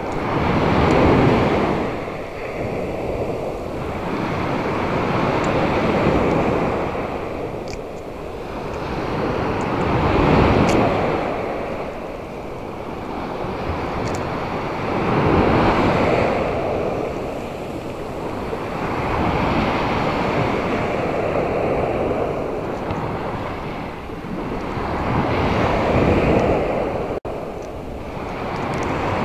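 Surf breaking on the shore, each wave rising and falling away about every five seconds, with wind on the microphone.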